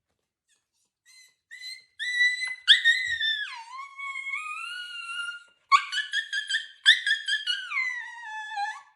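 A dog whining in high-pitched cries. A few short yelps come first, then a long wavering whine that drops in pitch, then a run of quick pulsing whines that slide down near the end.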